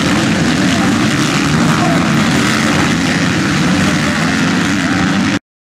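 A pack of motocross dirt bikes with their engines revving hard as they power through a muddy corner, many engine notes overlapping in a loud, dense drone. The sound cuts off abruptly near the end.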